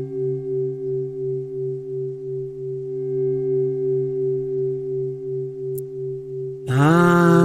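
Meditation drone of a few steady pure tones, pulsing about three times a second. Near the end, a louder, richer held note slides up in pitch and then holds over the drone.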